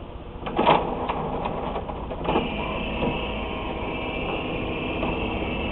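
Printer going through its start-up cycle after being restarted: a few knocks and a clatter just under a second in, then a steady mechanical whir with a high whine from about two seconds in.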